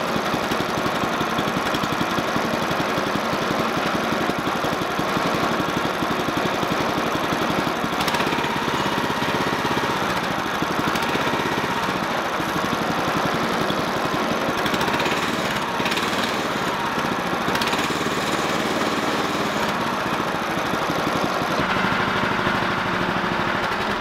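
Predator single-cylinder gasoline engine on a Harbor Freight portable band sawmill running steadily at low throttle just after its first-ever start, which took four pulls.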